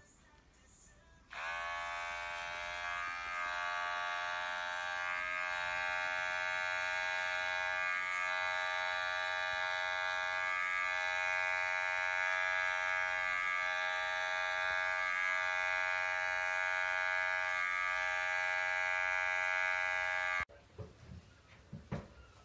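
A small electric motor buzzing at a steady pitch. It switches on about a second in, runs for about nineteen seconds and cuts off suddenly near the end.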